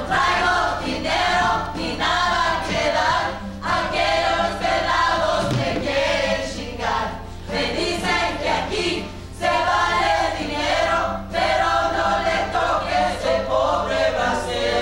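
A group of voices singing together in phrases that pause every second or two, over a steady low electrical hum.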